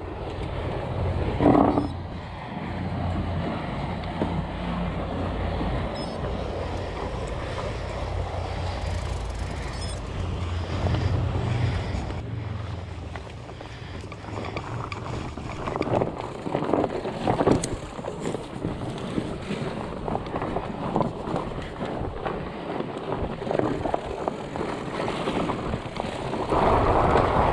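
Mountain bike ridden over a dirt and stone trail: tyre noise and the rattle of the bike over bumps, with a few sharper knocks about two-thirds of the way through. A low steady drone fills roughly the first twelve seconds, and wind on the microphone gets louder near the end.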